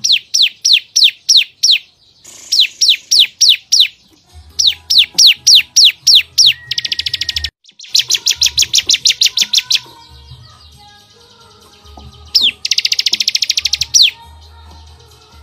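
Cage songbirds from a masteran compilation of cucak cungkok, canary and ciblek singing in rapid-fire 'tembakan' phrases. There are three runs of about seven sharply falling whistles, about five a second, then fast, buzzy high trills a little past the middle and again near the end.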